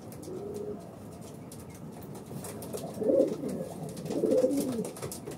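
Racing pigeons cooing: a faint coo near the start, then louder bouts of cooing about three and four-and-a-half seconds in.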